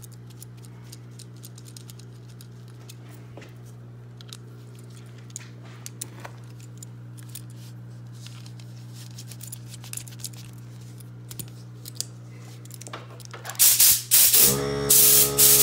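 Small metal clicks and taps as a brass tip is threaded onto an air blow gun, over a steady low hum. Near the end come a few short, loud blasts of compressed air from the blow gun, and a small air compressor's motor starts running with a steady hum.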